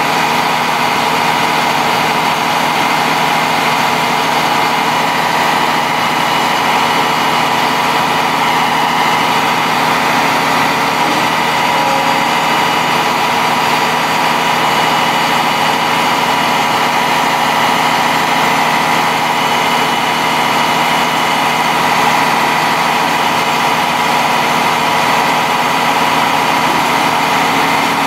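International DT466 7.6-litre inline-six turbo diesel of a digger derrick truck idling steadily, with a steady whine over the engine note.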